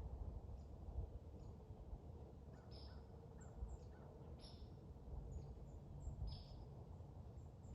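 A small bird repeating a short, high call about every second and a half, with fainter high chips between, over a low steady rumble of wind or outdoor background.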